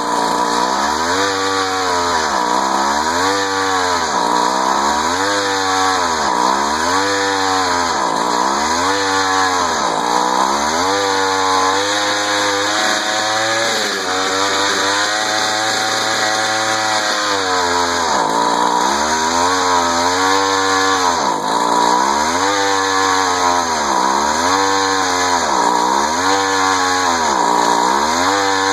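Tecumseh TC-II 49cc two-stroke power head running a geared drill as its auger bores a 1-inch hole into thick oak. The engine speed keeps dipping and recovering, about once every second and a half, as the bit loads it.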